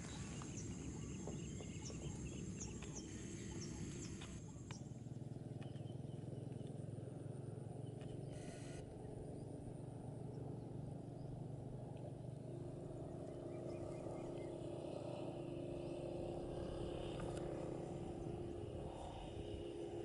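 Outdoor ambience: a steady low hum with a short run of faint, high bird chirps in the first few seconds. A brief hiss comes about eight seconds in, and a low steady tone joins the hum in the second half.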